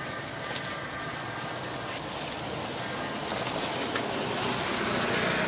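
Birds calling in the background, with steady high notes in the first half and a few faint clicks.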